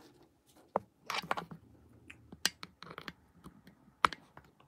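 Scattered clicks, taps and short rustles of a phone being handled as its braided charging cable is plugged in, with sharp clicks about two and a half and four seconds in.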